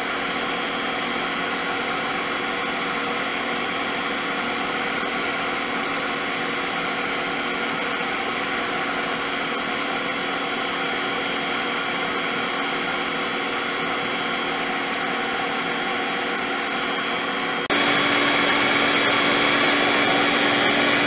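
Sunbeam stand mixer's electric motor running steadily, its beaters whisking eggs and sugar for a sponge cake batter in a glass bowl. About 18 seconds in the hum abruptly gets louder and changes pitch, then holds steady.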